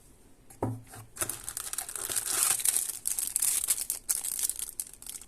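Plastic packaging crinkling and rustling as it is handled and pulled open, starting about a second in and continuing as a dense, crackly rustle.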